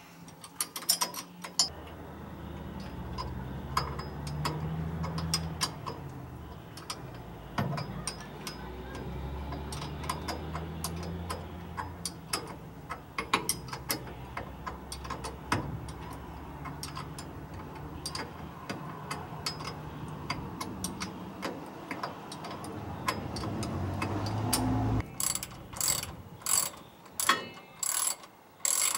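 Hand ratchet clicking as the bolts holding a pinion guard are snugged down, over a low hum; near the end the clicks come louder and spaced, about two a second.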